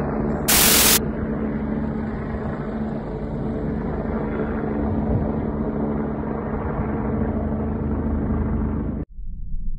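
Distant helicopter flying overhead: a steady low drone mixed with street background noise. A short, loud burst of hiss comes about half a second in, and the sound cuts off abruptly shortly before the end.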